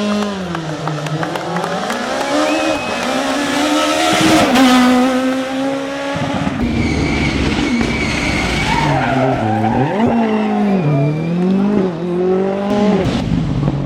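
Rally car engine revving hard, its pitch climbing and dropping again and again through gear changes and lifts off the throttle, over constant tyre noise with some squeal.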